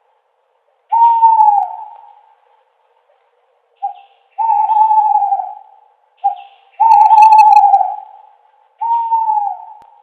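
Owl hooting: four hoots about two seconds apart, each held near one pitch and sliding down at its end. The second and third hoots are each led by a short clipped note.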